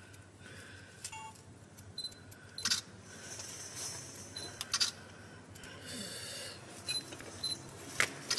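Small clicks and short scrapes of a spatula working metal-repair putty onto a finned steel pipe, with a sharp click about eight seconds in.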